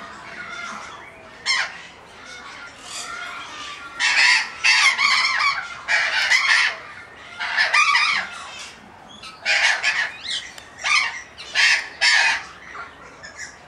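Parrots calling: softer calls at first, then from about four seconds in a run of loud, harsh screeching calls, each about half a second to a second long.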